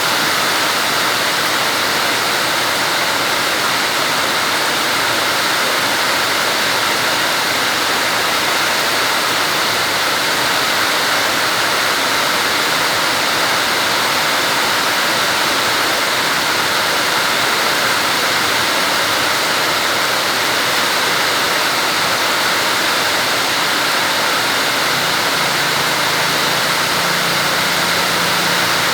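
Heavy rain pouring steadily, a dense unbroken hiss of water. A low hum comes in near the end.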